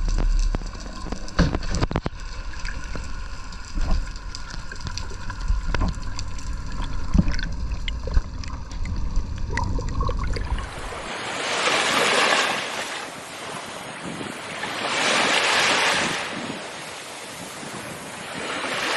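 Low rumble with scattered sharp clicks for about ten seconds, then sea waves washing in, swelling and fading about every three and a half seconds.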